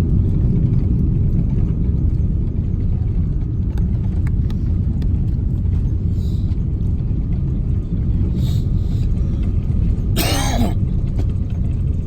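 Steady low rumble of an Airbus A330's engines and airflow heard inside the passenger cabin. About ten seconds in, a brief high-pitched sound slides down in pitch.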